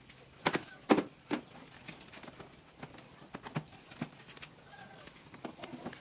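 Irregular sharp knocks and clicks, as of hard objects being handled; the loudest come in a cluster between about half a second and a second and a half in, with lighter scattered ones after.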